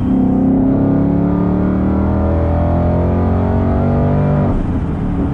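Supercharged Ford Mustang V8 engine pulling under power, its note rising slowly. About four and a half seconds in, the steady note breaks off into a rougher rumble.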